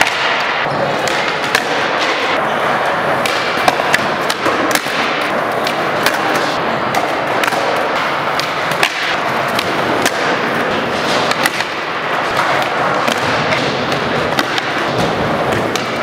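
Skateboards doing flatground flip tricks on a concrete floor: tails popping, boards clacking and landing, and wheels rolling, with many sharp knocks throughout over a steady background din.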